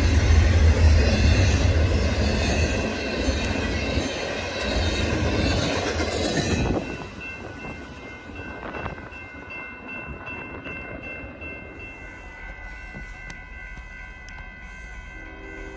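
Double-stack intermodal freight cars rolling and rumbling past on the rails, the noise ending abruptly about two-thirds of the way in as the last car clears. After that it is much quieter, and a distant locomotive horn begins near the end.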